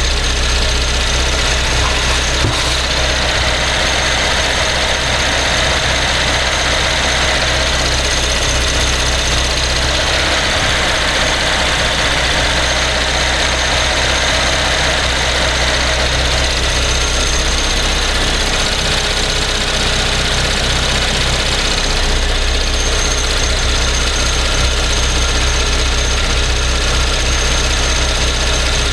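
2012 Cadillac SRX's GM 3.6-litre direct-injection V6 idling steadily while warming up after a cold start, heard close up in the engine bay.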